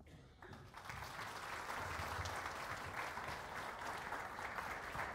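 Audience applauding at the end of a talk: the clapping builds up within the first second and then holds steady.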